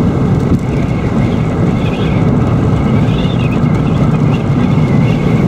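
Car driving along a road, heard from inside the cabin: a steady drone of tyre, road and engine noise.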